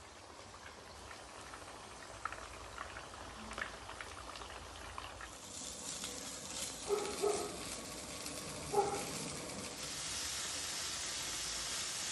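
Hiss and sizzle from a stainless-steel gas barbecue grill, with light ticks early on. The hiss grows louder about halfway through and then holds steady, broken by two short louder sounds.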